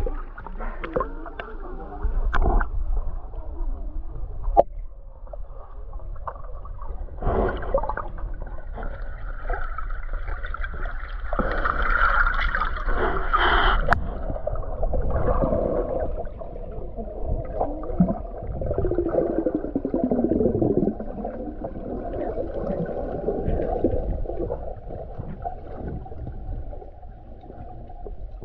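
Water sloshing and gurgling around a camera held at and under the surface while snorkeling. After the first half it sounds muffled, as heard underwater.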